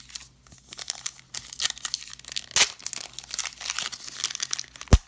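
Silver foil wrapper of a 2018 Illusions football card pack being torn open and crinkled by hand, a dense crackle of small tears and crinkles. A sharp low thump near the end.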